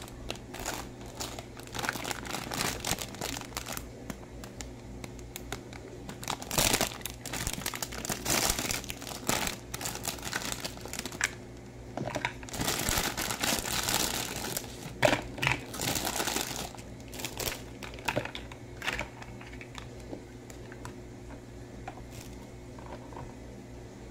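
Clear cellophane bags around plastic toy parts crinkling as they are handled and pulled open, in irregular bursts, loudest about halfway through. In the last several seconds this thins to scattered light clicks of hard plastic parts being fitted together.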